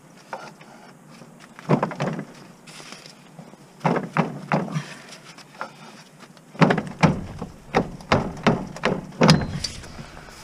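A series of sharp knocks and clanks from hand work on the underside of a car, with tools and parts striking in uneven groups. The knocks come quicker and heavier in the second half.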